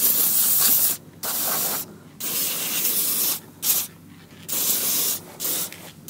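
Aerosol can of white lithium grease sprayed through its straw onto a ratchet chain binder's screw and gear, to free up the sticky binder. It comes in about six short hissing bursts with brief pauses between them.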